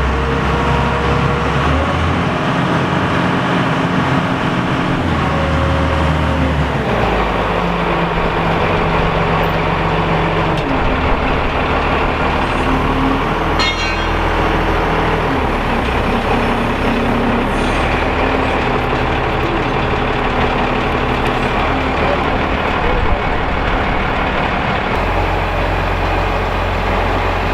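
Heavy truck or lifting-machine engine running steadily, its speed stepping up and down every few seconds while a heavy rock slab is being lifted on a chain. A short run of fast ticks comes about halfway through.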